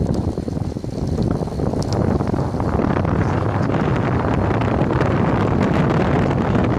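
Wind buffeting the microphone of a moving open vehicle, a dense steady rush with a low rumble beneath, growing a little louder after a couple of seconds.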